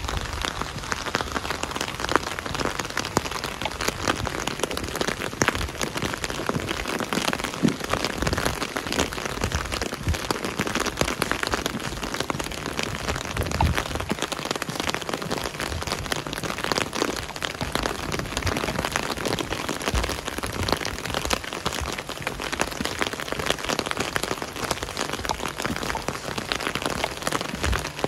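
Steady rain falling, a dense patter of many drops with individual drops ticking sharply.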